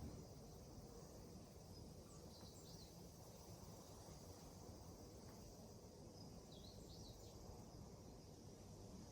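Near silence: quiet room tone with a steady low hiss. Two faint clusters of short, high chirps come about two and a half and seven seconds in.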